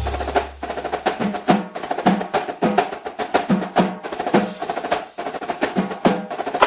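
Percussion-heavy music: fast, dense drum hits with a low bass note under the first second.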